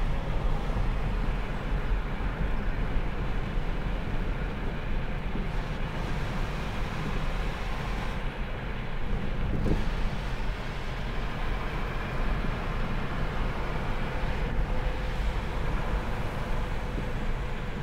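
Steady engine and tyre noise of a moving car, heard from inside the cabin, with a faint steady hum.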